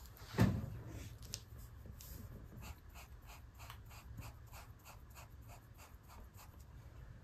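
A single knock about half a second in, then a paintbrush scrubbing paint onto paper in quick, even strokes, about three a second.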